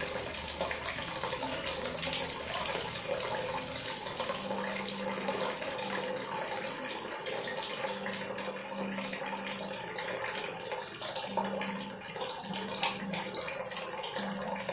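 Water running from a tap in a steady stream.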